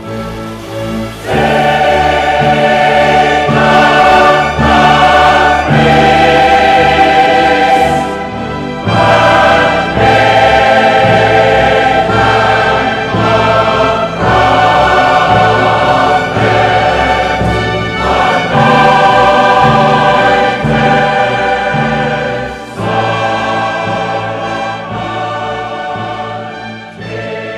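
Choral music: a choir singing long held chords that change every second or two, swelling loud about a second in and easing briefly twice.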